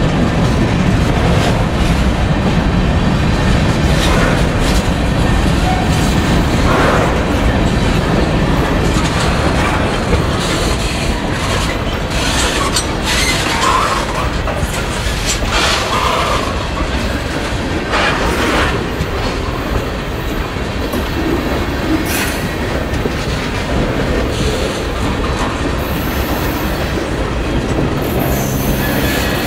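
Freight cars of a passing train, covered hoppers and then tank cars, rolling by at close range: a steady heavy rumble of steel wheels clacking over the rails. A few brief wheel squeals come through about halfway through.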